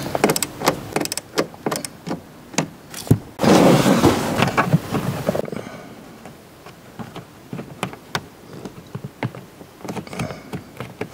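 Plastic under-dash trim panel and its push-pin retainer being handled and fitted by hand: irregular plastic clicks and knocks, with a rubbing scrape lasting about two seconds starting around three and a half seconds in.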